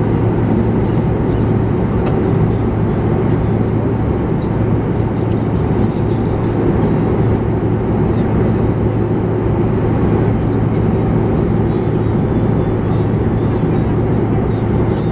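Steady airliner cabin noise in flight: an even rush of jet engines and airflow with a constant low hum.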